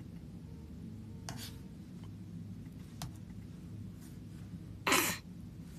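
Low steady hum of room tone with a faint click, and near the end one short, loud breath noise from the person at the microphone.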